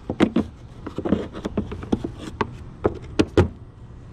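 Irregular clicks and knocks of a screwdriver working the remaining fastener on the plastic air box lid of a 1991 Jeep Cherokee, about one to three sharp knocks a second.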